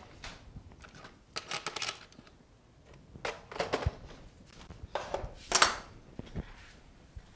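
Small metal parts clinking and clattering on a desk as they are handled and set down, in a few short bursts, the loudest about five and a half seconds in.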